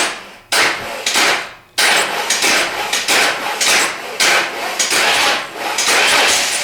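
Starter motor worked through a remote starter switch that bypasses the ignition switch: two short bursts, then a longer cranking run in which the engine turns over, the sound rising and falling about twice a second.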